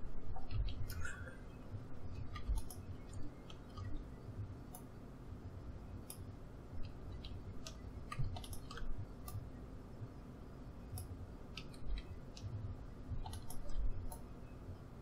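Irregular, scattered clicks of a computer mouse and keyboard as mesh edge loops are moved in Blender, over a faint steady low hum.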